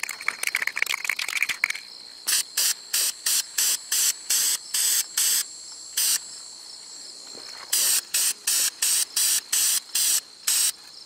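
Aerosol can of VHT high-temperature brake paint shaken with its mixing ball rattling, then spraying in about twenty short hissing bursts in two runs, with a pause near the middle, as a coat is laid on brake drums and hubs. Crickets chirr steadily in the background.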